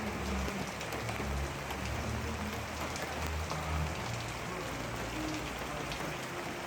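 Steady rain falling and pattering, with a low rumble underneath.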